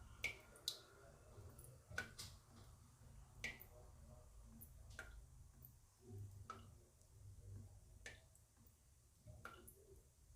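Water drops falling one at a time, about ten faint plinks at irregular intervals of roughly a second, each with a short ringing tone.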